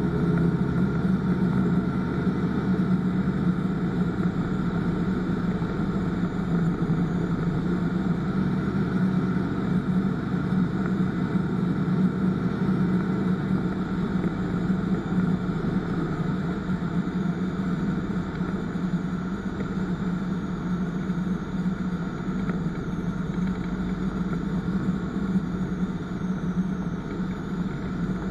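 Ultralight aircraft's piston engine and propeller running steadily on final approach, heard from inside the cockpit as a constant low drone.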